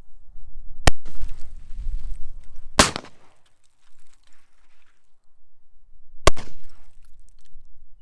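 Three shots from a black-powder .44 Remington New Model Army cap-and-ball revolver, fired with percussion caps, about one, three and six seconds in. Each shot is followed by a brief echo.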